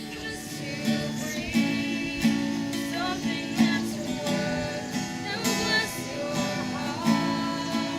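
Music led by a strummed acoustic guitar, steady throughout.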